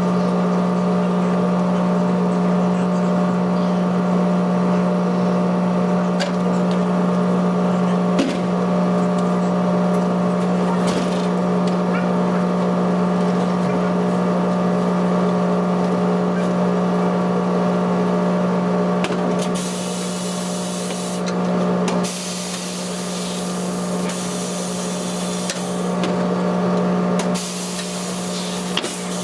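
Tyre-shop machinery: a steady motor hum with a few sharp clicks. From about two-thirds of the way through come on-and-off bursts of compressed-air hiss.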